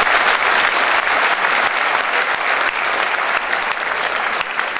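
Audience applauding: dense, steady clapping from a large crowd, easing off slightly toward the end.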